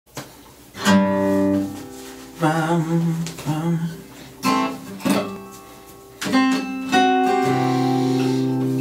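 Acoustic guitar music played in short phrases of plucked and strummed notes and chords, each starting about a second apart, then settling into a held chord about seven seconds in.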